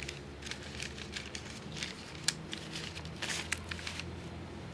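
Rustling of clothing and crinkling of paper banknotes as a man digs cash out of his pocket, with scattered small crackles and one sharper click about halfway through.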